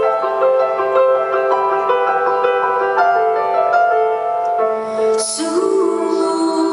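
Live piano music: sustained, ringing chords and notes, with a woman's singing voice coming in about five seconds in.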